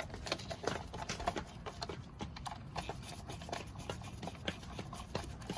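Irregular small clicks and knocks of hands and tools working on an electric chainsaw's bar and chain, hard parts tapping and clattering against each other.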